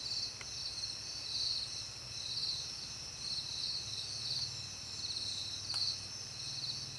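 Crickets chirping: a steady high trill with pulsed chirps repeating at an even pace, over a faint low hum.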